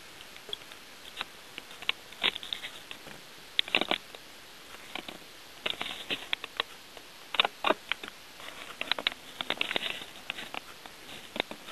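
Irregular light clicks and taps, some single and some in quick clusters, over a steady hiss.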